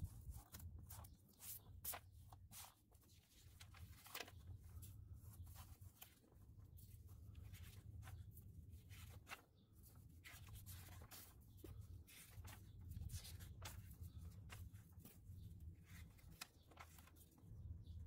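Near silence: faint rustling and scattered light clicks of a fuse relocation kit's parts and paper instruction sheet being handled, over a low hum.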